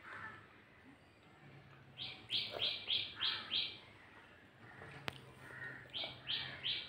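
A bird chirping: a run of about five short high notes, evenly spaced at about three a second, then a second run starting near the end. A single sharp click sounds about five seconds in.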